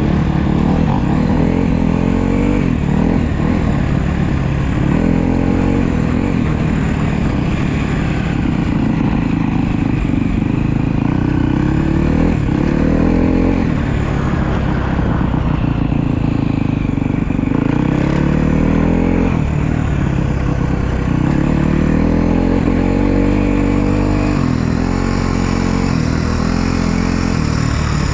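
Honda CRF250R motocross bike's single-cylinder four-stroke engine under way, revving up and falling back over and over as the throttle is opened and closed.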